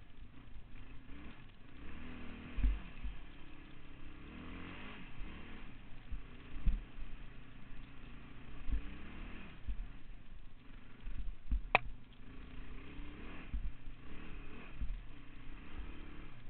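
Yamaha Raptor 660 quad's single-cylinder four-stroke engine revving up and down under way, with several low thumps and one sharp click about three-quarters through.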